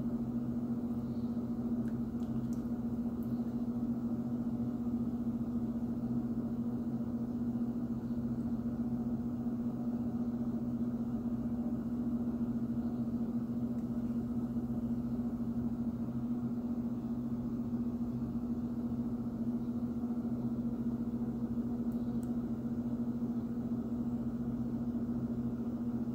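A steady low electrical hum, holding one pitch and level throughout.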